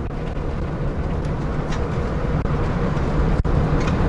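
Steady road and engine noise from inside a moving vehicle: a low rumble with a few faint clicks.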